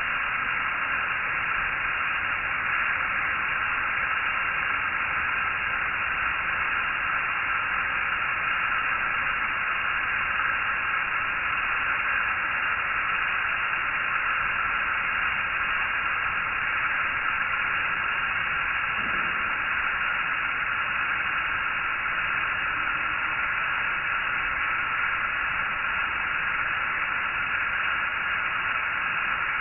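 Steady, even hiss of recording noise, with no other sound standing out.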